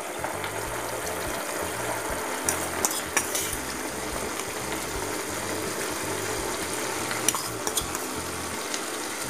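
Tamarind extract with oil bubbling and sizzling at a steady boil in a pan, as spice powder is added to it; a few light clicks sound at about two and a half, three and seven seconds in.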